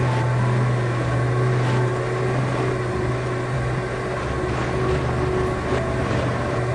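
Electric ceiling fan running, its motor giving a steady low hum with a few faint ticks.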